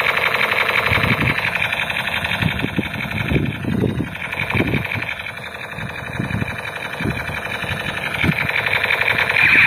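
Battery-powered toy sniper rifle's electronic sound effect playing through its small speaker: a steady, buzzing rapid-fire sound that dips a little in the middle and swells again near the end.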